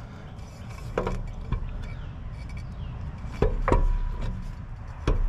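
Metal knocks and clinks as a Warner Electric PTO clutch/brake is pushed up onto the mower engine's crankshaft and worked into place. There are a few separate knocks, and one past the middle leaves a brief metallic ring.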